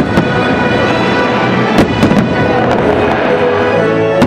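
Aerial fireworks shells bursting, with two sharp booms about two seconds in, over the fireworks show's music.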